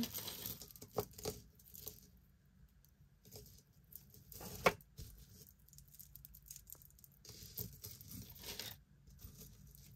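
Costume jewellery being handled: faint clinks and small rattles of metal mesh chain necklaces, with one sharper click about four and a half seconds in.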